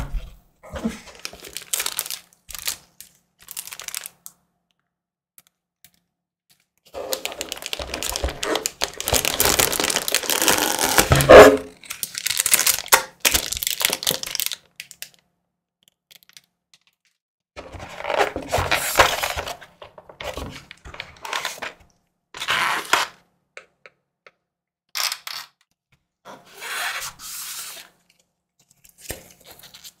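Packaging being handled: the crinkle of the keyboard's clear plastic sleeve as it is lifted from its box, and the rustle of paper and cardboard. It comes in irregular bursts with quiet gaps between them, the longest and loudest stretch a third of the way in.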